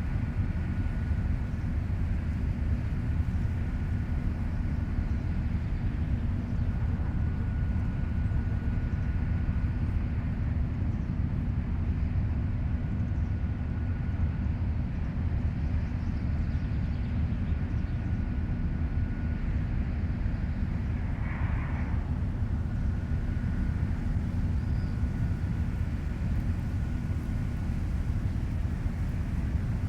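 Heavy machine's engine running steadily with a low rumble. A faint high whine comes and goes above it, and a brief scrape or squeal sounds about two thirds of the way through.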